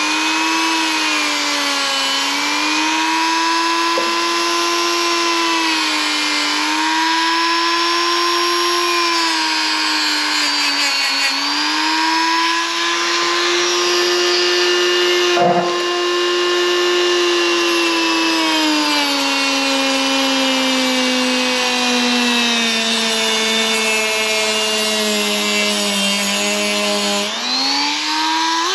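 Dremel rotary tool running at high speed, grinding rust from the lower rear window frame under the rubber seal. Its whine dips in pitch a few times and recovers, then drops gradually in the second half. It cuts out near the end and briefly spins up again.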